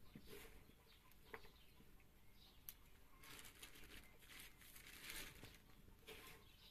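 Hands tossing sliced raw liver in flour on a metal tray, with a plastic flour bag crinkling and rustling, loudest a few seconds in. Faint.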